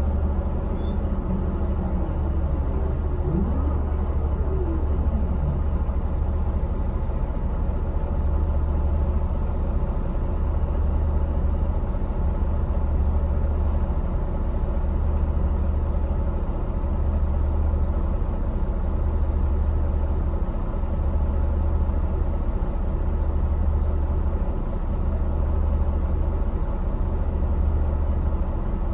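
Bus's MAN D2866 inline-six diesel engine running steadily with a deep, slowly pulsing rumble, heard from inside the cabin.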